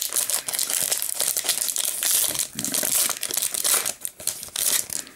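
Foil wrapper of a Pokémon booster pack crinkling and tearing as it is opened by hand: a dense crackle of many small crackles that thins out near the end.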